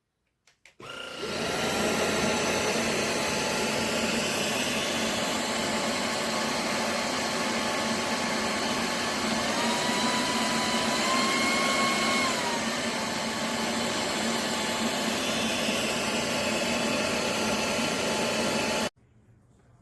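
drepre K7 Pro cordless stick vacuum switched on, its motor spinning up with a rising whine and then running steadily. The whine rises in pitch for about three seconds around the middle and drops back, and the vacuum cuts off suddenly near the end.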